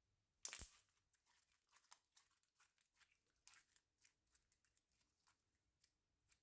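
Slime being stretched and squished by hand: a quick tearing stretch about half a second in, then a run of small crackles and pops as air pockets burst, all quiet.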